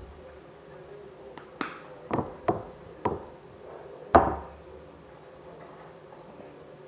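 Sharp knocks and clicks of a school-glue bottle and mixing container being handled on a table, about six in a few seconds; the loudest comes about four seconds in and rings briefly.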